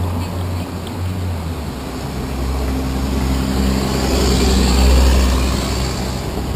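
Two box trucks driving past close by, one after the other. The low engine rumble builds to its loudest about five seconds in, with tyre hiss as they go by, then eases off.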